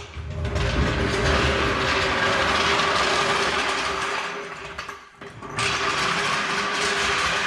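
Vehicle lift running as the car is lowered: a loud, steady mechanical noise with a constant hum that dips briefly about five seconds in, then carries on.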